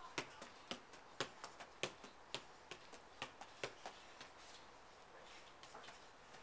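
A light plastic ball being juggled on the feet and knees: a run of soft taps, two to three a second, which thin out and grow fainter in the last couple of seconds.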